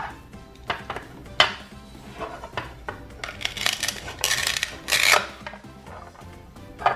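Toy pear and knife knocking lightly a few times on a toy cutting board, then the rasping rip of velcro pulled apart in two long tears about halfway through, as the pear halves separate. Faint background music throughout.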